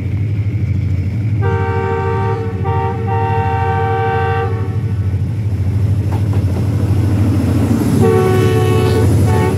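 Pakistan Railways diesel-electric locomotive approaching and passing close, its engine rumbling throughout. Its multi-note horn sounds a long blast broken by two short gaps from about a second and a half in, then sounds again as the locomotive goes by near the end.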